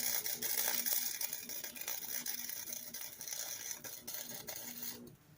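MIG welder running a weld on a steel bracket: a steady crackling sizzle that starts abruptly and cuts off sharply about five seconds in.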